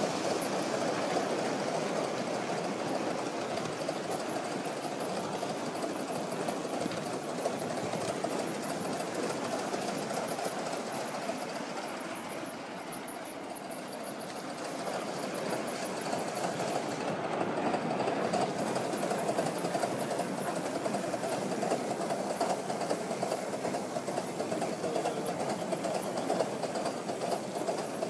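Gauge 1 live steam model locomotive running on its track with a rapid, steady mechanical beat. It gets quieter around the middle and then louder again.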